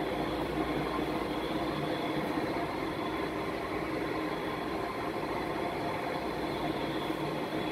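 A steady mechanical hum with an even background noise that holds unchanged throughout.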